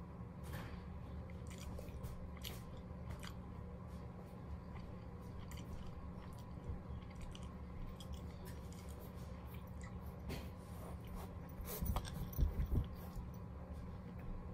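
Rottweiler puppy chewing and gnawing on a small toy, with scattered soft clicks and crunches from its teeth. A few louder low thumps come about twelve seconds in.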